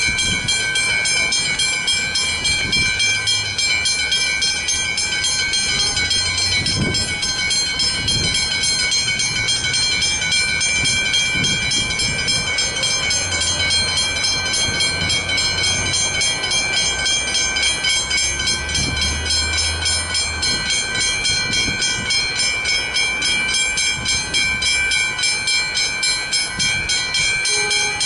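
Two Westinghouse Hybrid level-crossing bells ringing continuously with rapid, even strikes, as programmed to sound until the boom gates rise. A low rumble comes in around the middle.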